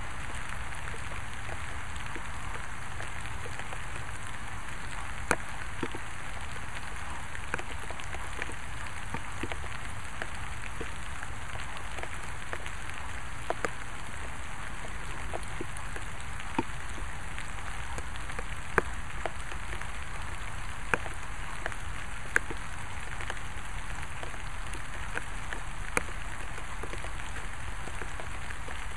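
Steady rain falling, an even hiss with a dozen or so louder single drops striking close by.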